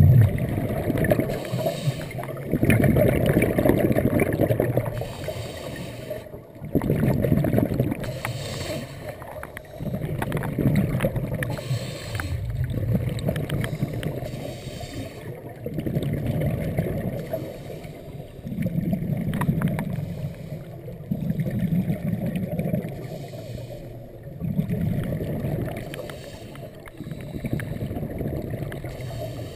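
Scuba regulator breathing heard underwater: swells of exhaled bubbles gurgling past the camera housing, repeating every two to three seconds, with short gaps between.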